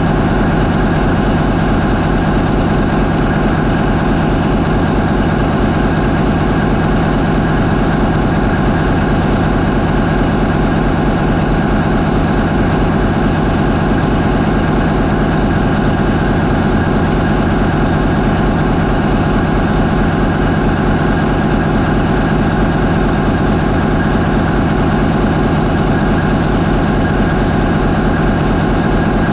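MAN 20V28/33D STC twenty-cylinder marine diesel main engine running steadily at 550 RPM.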